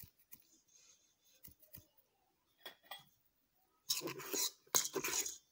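Cake batter being stirred in a metal bowl as flour is mixed into beaten eggs and sugar. Faint scrapes and clicks at first, then louder rubbing and scraping from about four seconds in.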